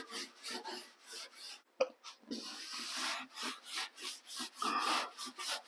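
Steel-wool soap pad scrubbing a truck's inner fender well, a quick run of short rubbing strokes, with one light tap about two seconds in.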